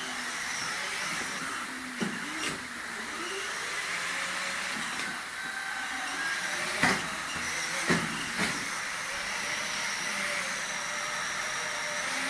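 Battery-powered ride-on toy motorcycle driving along, its electric motor whirring steadily as its plastic wheels roll over a tiled floor. A few short knocks break in about 2, 7 and 8 seconds in.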